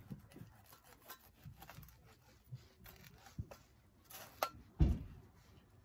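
Kitchen knife slicing through a charred block of grilled meat on a plastic cutting board, with small cutting sounds and taps of the blade against the board. A heavier thump comes near the end.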